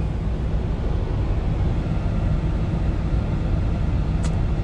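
Kenworth T680 semi truck's diesel engine pulling in a low gear, a steady low rumble heard from inside the cab. A brief click near the end.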